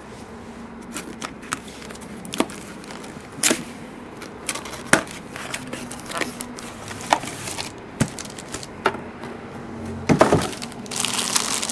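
Cardboard card box being slit open and pried apart: scattered sharp clicks and cracks of stiff cardboard. Near the end comes a louder rustle and crinkle of plastic shrink-wrap.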